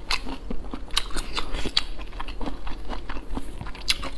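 Close-miked chewing and biting of braised pork intestines: irregular wet, squishy clicks and crunches, several a second.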